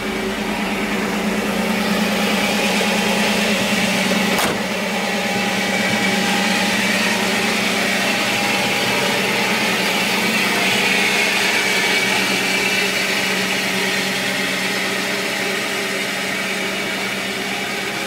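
Steady hum of running machinery with a constant whir, broken by one sharp click about four and a half seconds in.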